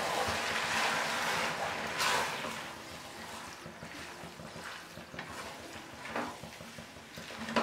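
Chow mein noodles, vegetables and sauces stirred and tossed with a spatula in a hot non-stick kadhai: a wet frying hiss, louder for the first two seconds or so, then softer, with a few short knocks of the spatula near the end.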